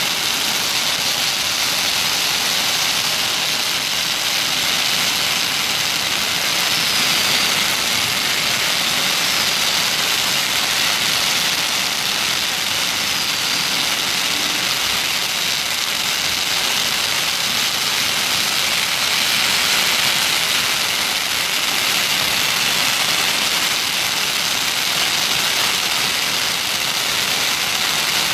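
Many long strings of red firecrackers going off at once: a loud, dense, unbroken crackle of bangs with no gaps.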